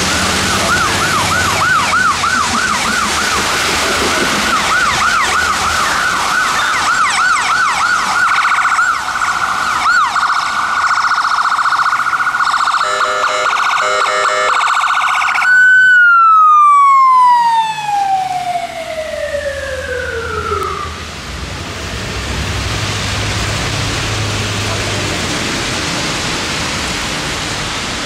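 Ambulance siren on a Chevrolet Demers ambulance: a fast yelp that changes to an even faster warble about nine seconds in. About sixteen seconds in it is switched off and falls in one long, loud downward glide. Then comes steady tyre hiss on the wet road with a low engine rumble.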